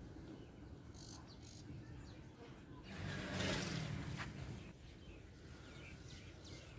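Faint chirping of small birds, with a louder rush of noise lasting about a second and a half about three seconds in.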